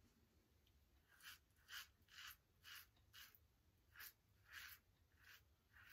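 Safety razor scraping through lathered stubble on the neck on the final pass of a wet shave: quiet, short strokes at about two a second, starting about a second in.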